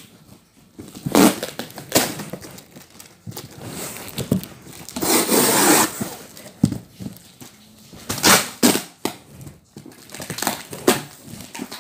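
Cardboard shipping box being torn open by hand: a series of short tearing and scraping rips of cardboard, the longest about five seconds in.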